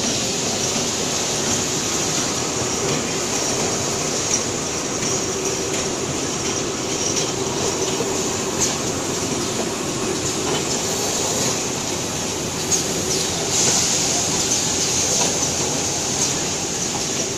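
Toilet-paper production and single-roll packing machines running: a steady mechanical din with a low hum and a high hiss, broken now and then by short sharp clicks and clacks of the mechanism.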